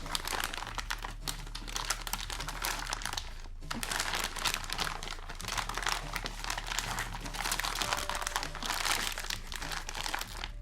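Plastic filament bag crinkling and rustling as a spool of PLA filament is slipped back into it and handled, with a brief pause about three and a half seconds in.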